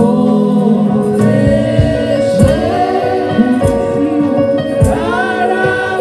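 Live gospel praise-and-worship music: a woman lead singer and a group of backing singers singing together over band accompaniment, with sustained low notes and occasional drum hits.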